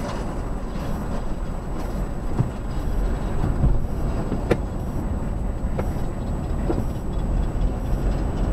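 Steady rumble of road and engine noise inside a car driving at highway speed, with a few faint ticks.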